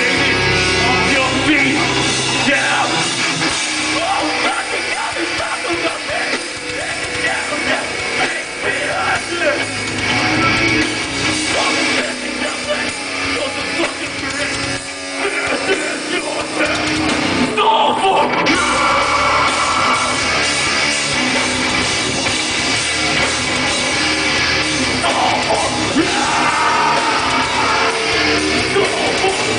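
Live rock band playing loud: electric guitars, drums and vocals.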